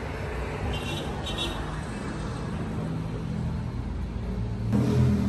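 Steady road traffic noise with a low rumble. Music comes in just before the end.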